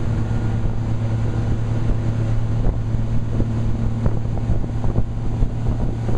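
Motorboat engine running at a steady pitch, with wind noise on the microphone and occasional short knocks.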